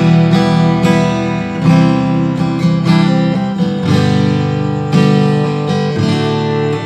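Solid-wood cutaway acoustic guitar with Makassar ebony back and sides, played fingerstyle: plucked chords and melody notes ringing together, with a stronger chord about four seconds in. Its tone is full and thick, likened to rosewood.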